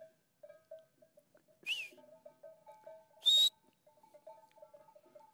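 Shepherd's whistle commands to a working Border Collie herding sheep: a short high whistle that rises and falls about a second and a half in, then a longer, steady high whistle about three seconds in.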